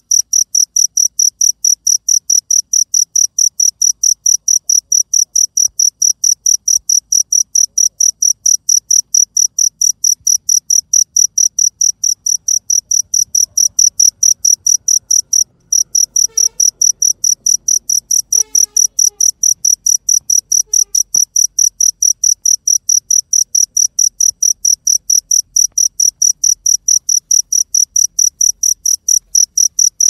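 Cricket chirping in rapid, even, high-pitched pulses, with a brief break about fifteen seconds in.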